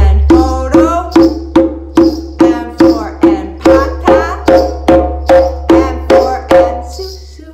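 Djembe played by hand in a steady beat, about two and a half strokes a second: open tones followed by slaps, over a steady low hum. The strokes stop shortly before the end, at the silent notes of the drill.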